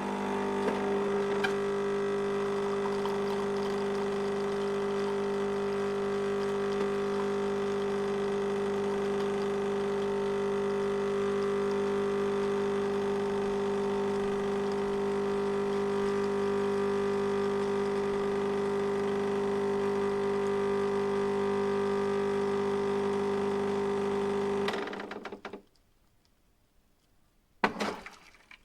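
Electric coffee grinder motor running with a steady hum. It cuts off about 25 seconds in, and a short clatter follows near the end.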